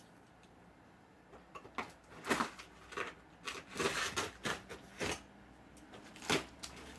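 A large cardboard box being cut open: a run of irregular short scraping and crackling strokes through the tape and cardboard, starting about a second in and stopping near the end.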